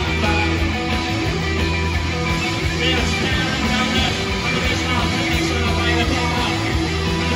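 A post-punk rock band playing a song live with loud electric guitars, heard from the crowd.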